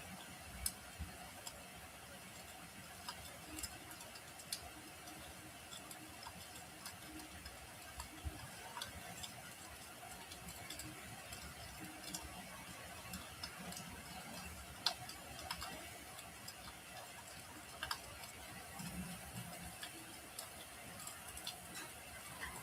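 Wood fire crackling: a steady low hiss with irregular sharp pops and snaps, the loudest pop about fifteen seconds in.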